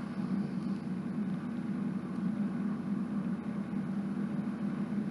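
Steady low mechanical hum of room background noise, with no distinct events.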